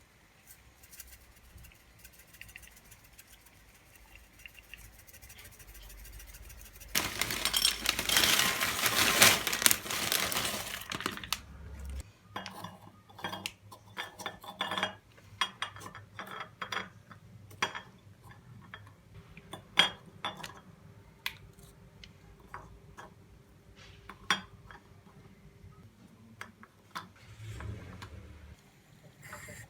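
Dishes, cutlery and glassware clinking and knocking as they are handled and put away, many separate sharp clinks over the second half. Before that, a loud rushing hiss lasts about four seconds, starting about seven seconds in.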